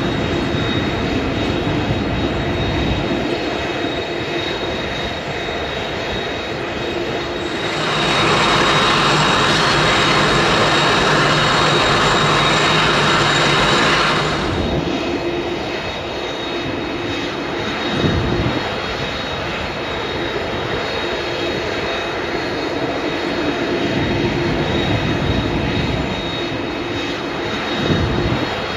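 Boeing 747-400ERF freighter's jet engines running, a steady high whine over rumble. About eight seconds in it turns louder and hissier for some six seconds, then drops back; a couple of brief low thumps come later.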